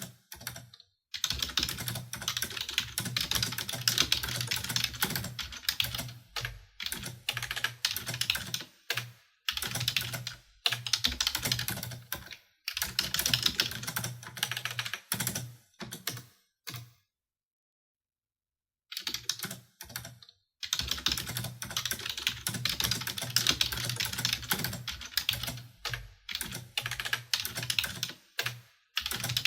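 Typing on a computer keyboard: fast runs of key clicks in spells of a few seconds, with short pauses between, and a gap of about two seconds a little past halfway.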